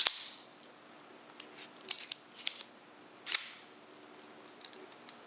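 Microtech out-the-front automatic knife firing with a sharp snap at the start. Lighter clicks of handling follow, then another snap about three seconds in.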